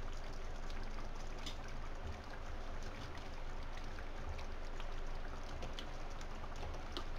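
Thick onion-tomato gravy simmering in an aluminium kadhai: a steady, low bubbling hiss, with a few faint soft taps as whole eggs are set into it.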